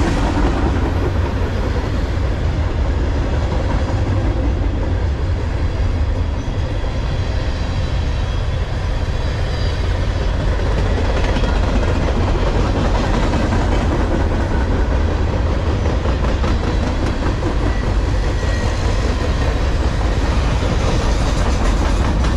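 Freight train cars loaded with waste containers rolling past, a steady loud rumble of steel wheels on rail.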